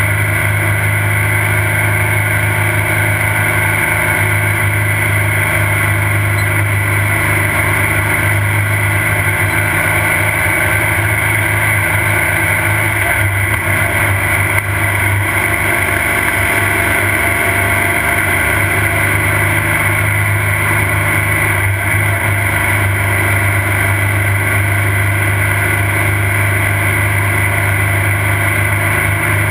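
Off-road race car's engine running steadily at an even speed, with no rise or fall.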